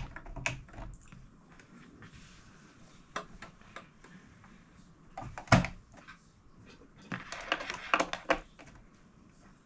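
Light clicks and knocks from handling a small electric sewing machine and fabric, with a sharper click about halfway through and a quick run of clicks near the end.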